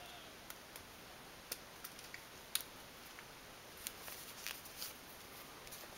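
Faint, scattered clicks and light taps of small metal hobby-knife blades being handled, with one sharper click about two and a half seconds in and a few more near the end.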